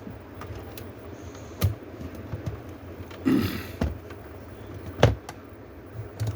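Sharp clicks and knocks of a Dell Latitude E6400 laptop's plastic parts being handled during disassembly, with a brief scrape about three seconds in and the loudest knock about five seconds in.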